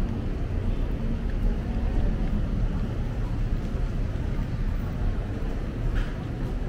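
Steady low rumble of outdoor city ambience, with no distinct events standing out.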